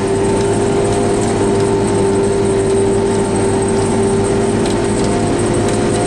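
John Deere tractor engine and pull-type forage harvester running steadily while chopping standing corn for silage, heard from inside the tractor cab: a loud, constant machine drone with a steady hum on top.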